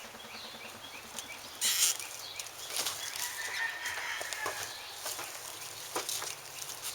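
Chickens clucking in the background, with scattered clicks and taps and one loud rustling scrape about two seconds in as the wrapped fuel tank is handled.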